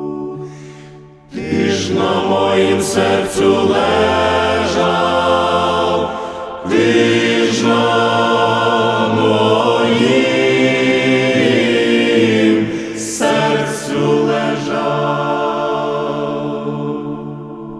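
A choir of voices slowly singing a church funeral chant in long held chords, with new phrases starting about a second in, near the middle, and about three-quarters of the way through.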